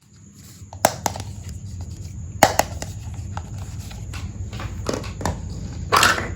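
Small plastic toy pieces being handled: a few sharp light clicks and knocks, then a longer scraping knock near the end, over a steady low hum.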